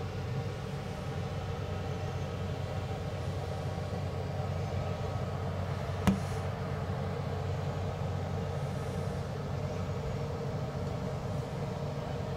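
Steady low mechanical hum of an empty bowling hall, with one sharp click about halfway through.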